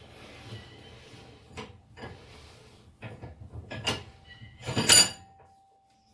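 Metal clicks and knocks from working a blacksmith's post vise with its newly fitted spring, growing louder, ending in one loud clank about five seconds in that leaves a metallic ring.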